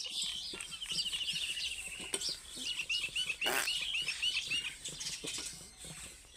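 Small birds chirping, with a fast trill in the first two seconds and then a run of about eight quick rising-and-falling whistled notes. Underneath, steel utensils clink lightly as dishes are washed by hand, with one louder knock about three and a half seconds in.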